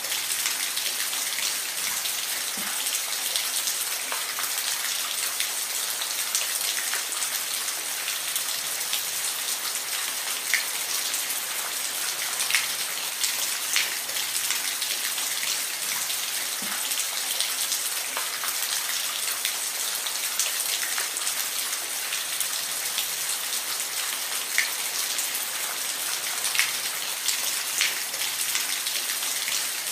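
Steady rain hissing, with scattered louder individual drops ticking on a nearby surface.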